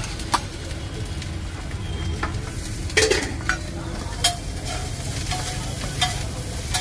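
Metal ladle stirring chilli chicken pieces in gravy in a wok over the stove, with a steady sizzle. The ladle clinks against the pan several times, loudest about three seconds in.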